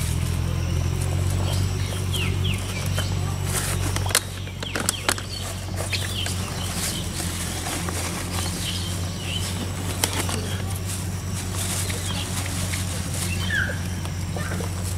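Scattered small bird chirps over a steady low rumble, with a few sharp clicks and rustles from plastic bottles and a plastic bag being handled, mostly around four to five seconds in and once near ten seconds.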